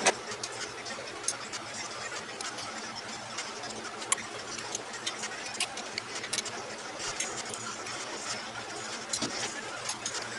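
Sharp, irregular clicks and clinks of hand tools and metal parts being worked on during engine assembly, with one louder knock at the start, over a steady low hum.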